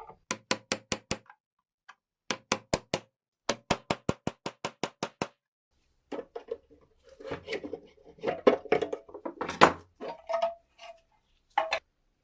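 Rapid, evenly spaced tapping, about seven sharp strikes a second in three short runs. It is followed by a few seconds of irregular scraping and knocking and one last knock near the end.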